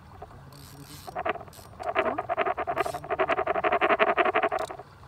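Frog calling: a fast pulsed trill of about ten pulses a second, a short burst about a second in, then a longer run of about three seconds.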